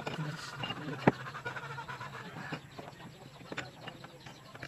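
Metal clinks and knocks as a wrench works on a car's front disc-brake caliper, with a sharp clink about a second in. Faint animal calls are in the background.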